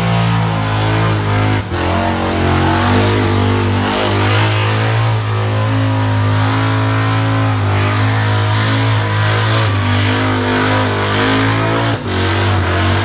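Burnout car's engine held at high, steady revs with the rear tyres spinning in a burnout, revs dipping briefly about a second and a half in and again near the end.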